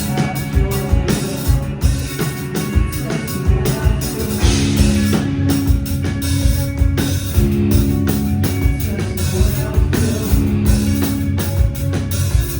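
Live rock band playing: guitars and bass holding chords over a steady drum kit beat.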